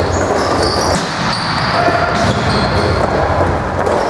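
Box lacrosse game noise on an indoor floor: a dense clatter of sticks, ball and players' feet, with many short high squeaks.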